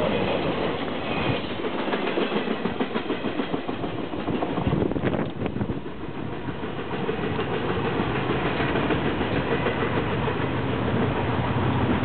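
Tail end of a CSX intermodal freight train rolling past, its wheels clicking and clattering over the rails. After the train clears, a steady low rumble carries on and swells a little near the end.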